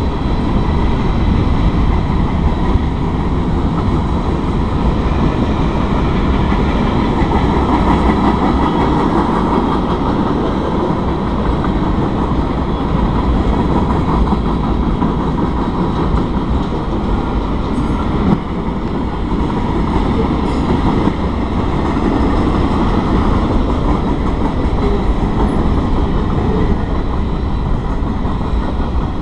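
Freight train cars rolling through a grade crossing: a loud, steady rumble and rattle of wheels on the rails with clickety-clack over the rail joints.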